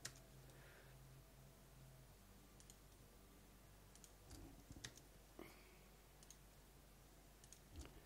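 Faint computer mouse clicks, a handful scattered through the stretch, over a low steady hum in near silence.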